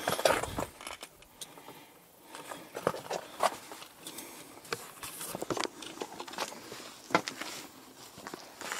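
Irregular footsteps on rough dirt and grass, with rustling and scattered sharp clicks.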